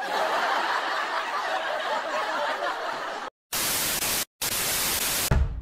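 Textured background hiss for about three seconds, then a short silence and two bursts of TV-static white noise split by a brief gap. Music comes in right at the end.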